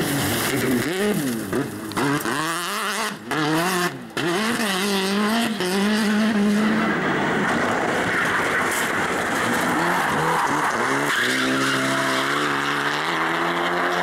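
Rally car engines revving hard, pitch climbing and dropping quickly through gear changes and lifts, with two brief breaks in the first few seconds. Mid-way there is a few seconds of tyre skidding noise, then a car's engine holds high, nearly steady revs while it slides on tarmac.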